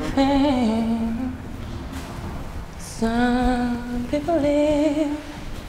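A woman singing a tune to herself, unaccompanied, in two short phrases; the second begins about three seconds in.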